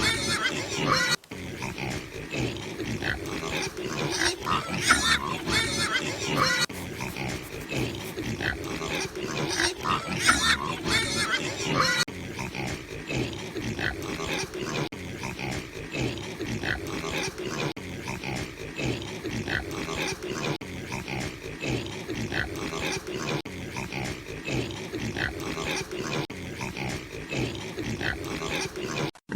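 A group of pigs squealing and grunting, with many calls overlapping. Sharp, high squeals dominate for about the first twelve seconds, then give way to a steady, busy chorus of lower grunts and cries.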